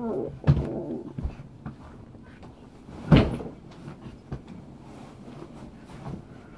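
A few dull thumps and knocks of a person flopping onto and scrambling about on a bed, the loudest about three seconds in.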